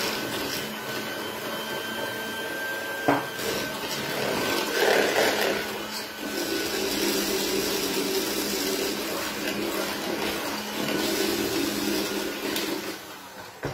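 Hand-held electric mixer running steadily, its beaters whisking egg-yolk cake batter in a plastic bowl, with a single sharp knock about three seconds in. The motor winds down near the end.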